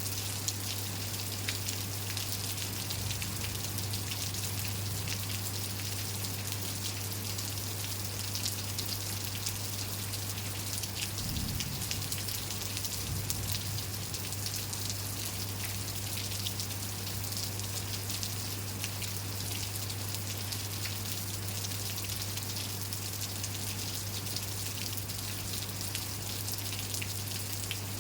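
Steady rain falling, with many close raindrops ticking individually over an even hiss. A steady low hum sits underneath, and a brief low rumble comes about eleven seconds in.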